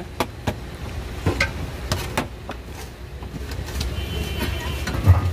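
Steady low street-traffic hum under scattered sharp clicks and knocks of steel bowls and utensils being handled, with a heavier thump near the end.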